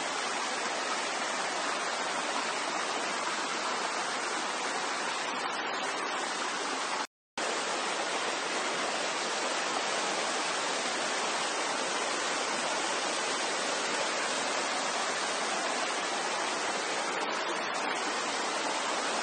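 Small waterfall: a steady rush of falling, splashing water. The sound cuts out completely for a moment about seven seconds in.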